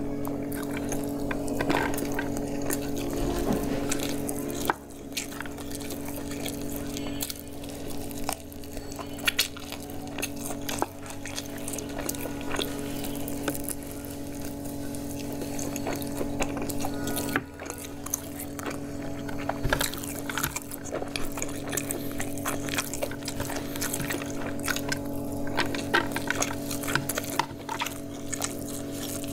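Wet eating sounds of someone eating biryani and fried chicken by hand: fingers squishing and mixing oily rice on a plate, and chewing, with many small clicks and smacks. A steady low drone of held tones runs underneath.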